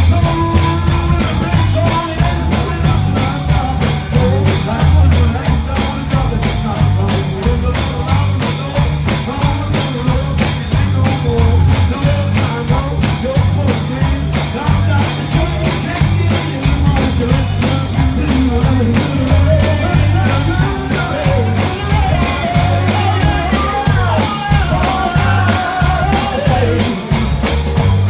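Live church band playing an upbeat gospel song: a drum kit keeps a fast, steady beat over a pulsing bass, with voices singing over the top.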